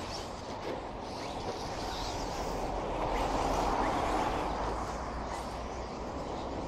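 Radio-controlled race trucks running on a dirt track: a few faint, brief rising motor whines over a steady rushing background.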